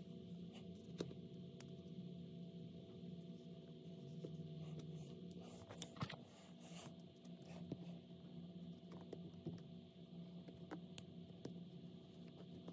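Faint handling of a large cardboard box on carpet: soft scrapes and rustling with a few light knocks, over a low steady hum.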